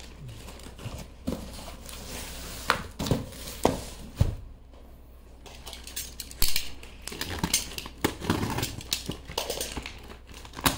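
Handling and opening a parcel box: scattered knocks and clatter, with stretches of rustling packaging in between.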